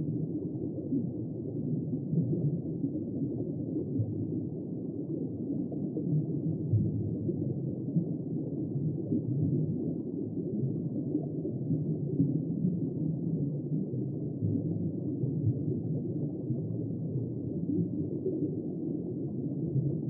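Steady, muffled low rumble of underwater ambience, with no distinct animal calls.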